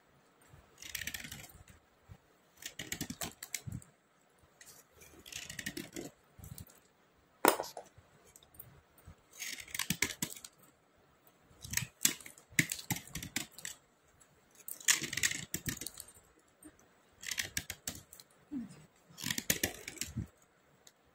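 Dry slate pencils being scraped clean with a small metal tool: short, dry, high-pitched scraping strokes, a dozen or so, every second or two, with one sharp click about seven and a half seconds in.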